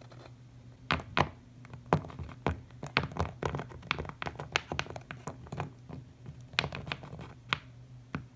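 Plastic Littlest Pet Shop toy figure hopped along a play-set floor by hand, its feet striking the surface in a quick, irregular run of light taps and thunks, over a faint steady hum.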